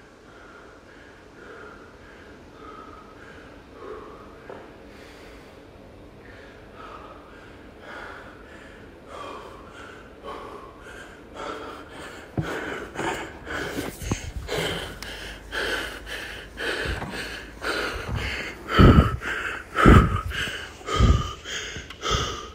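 A man panting hard in rapid, rhythmic gasps, about two a second, exhausted just after an all-out burpee-and-rowing workout; the breaths grow louder from about halfway through.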